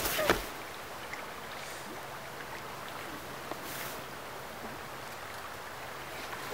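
Steady rush of a wide glacier-fed river flowing past the bank.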